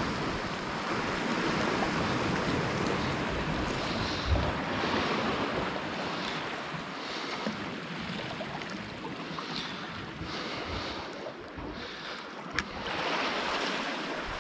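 Small sea waves washing and breaking against rocks at the shoreline, swelling and easing, with wind on the microphone. A single sharp click near the end.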